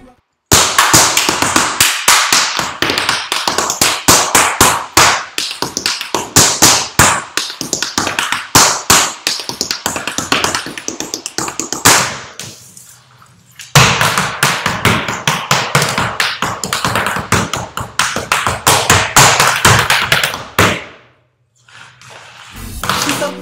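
Tap shoes striking a hard floor in fast, dense rhythms with no music: unaccompanied tap dancing. The tapping breaks off briefly about halfway and stops a couple of seconds before the end.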